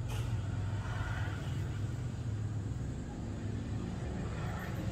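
Steady low rumble of background noise, with a soft swell about a second in and another near the end.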